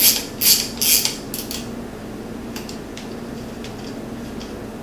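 Hand tool working a small metal pin out of a stock side-by-side shifter: a quick run of short metallic strokes, about three a second, in the first second and a half, then a few faint ticks over a steady low hum.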